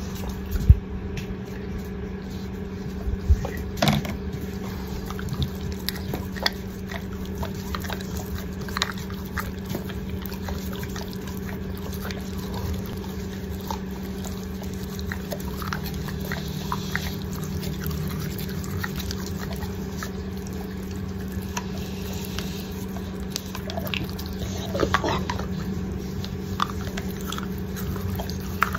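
Wet licking, smacking and small clicks from a Cane Corso's mouth as its teeth are brushed with a rubber finger toothbrush, over a steady low hum.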